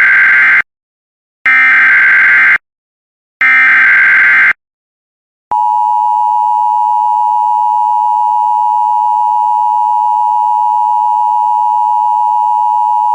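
Emergency Alert System SAME header: the tail of one burst of buzzy digital data, then two more one-second bursts a second apart, followed about five and a half seconds in by the steady two-tone EAS attention signal. The header and tone announce an alert that follows, here a severe thunderstorm watch.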